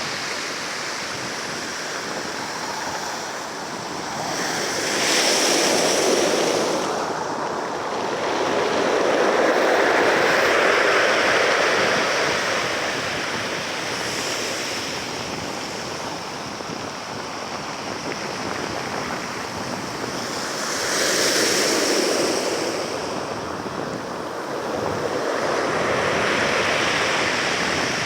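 Sea surf: a steady wash of waves, swelling louder four times as waves roll in and drawing back between them.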